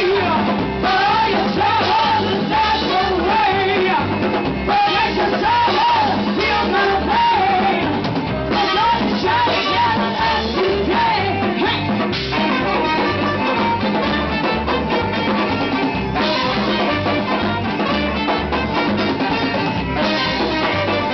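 Live band music with a woman singing lead, backed by saxophone, accordion, guitar and a drum kit keeping a steady beat. The singing stops about halfway through and the band plays on.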